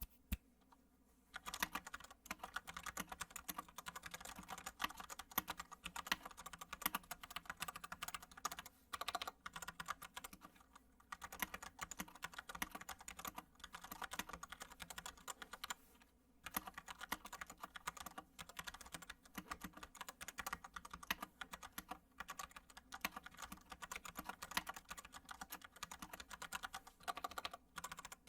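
Continuous typing on a mechanical keyboard with Gateron Yellow linear switches, a fast stream of key clacks broken by a few short pauses.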